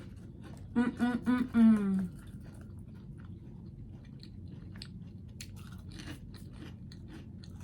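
A person chewing baked chicken up close, with many wet mouth clicks and smacks. About a second in comes a short hummed "mm-mm-mmm" that falls in pitch.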